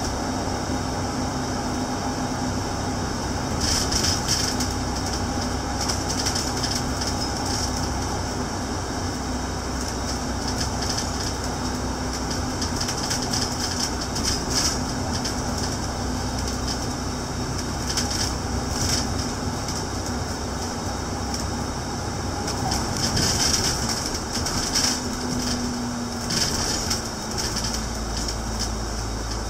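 Upper-deck cabin noise of a double-decker bus driving at speed: a steady engine drone and road rumble, with brief rattles coming and going.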